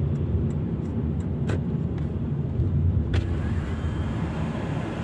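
Car cabin noise from a car rolling up to a toll booth: a steady low engine and road rumble. Two short sharp clicks come about a second and a half in and again about three seconds in.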